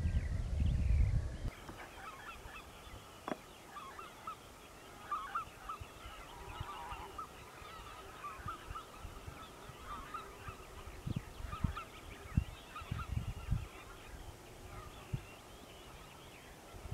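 A flock of geese flying overhead, calling continually in a busy chatter of short honks. A low rumble fills the first second or so, and a few low thumps come in the second half.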